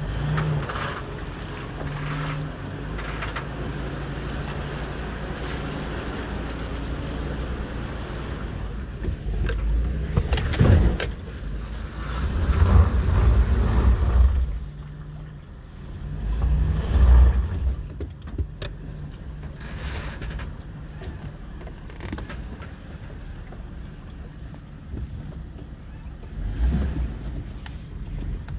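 Vehicle engine running at low speed as it crawls over a muddy, rutted dirt road. Heavy low rumbles and knocks come from the bumps and jolts, loudest in the middle stretch and again near the end.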